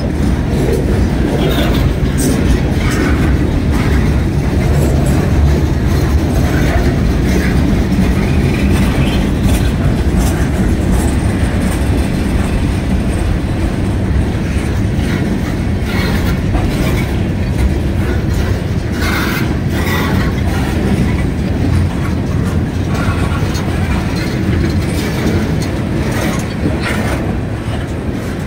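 Freight train cars rolling past close by: a steady, loud rumble of steel wheels on rail, with irregular clicks as the wheels cross rail joints and now and then a brief wheel squeal.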